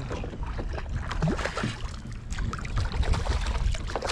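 Hooked speckled sea trout splashing irregularly at the water's surface beside a kayak as it is brought to the landing net, over a steady low wind rumble on the microphone.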